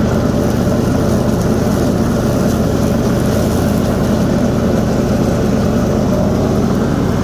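Toro SS4235 zero-turn mower's Kohler 22 hp V-twin engine running steadily at high throttle with the blades engaged, cutting thick grass without bogging down.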